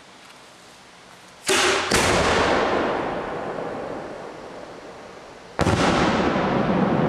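Homemade aerial firework shells going off: two sharp bangs close together about a second and a half in, then another near the end, each followed by a long rolling echo that slowly fades.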